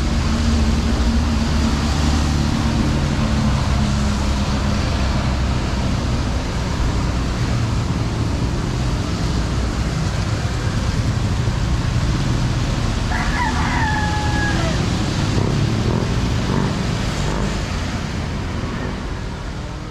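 Street ambience in the rain: a steady hiss with vehicle engines rumbling by, an engine hum plain in the first few seconds. A short call sounds about 13 seconds in, and everything fades out at the end.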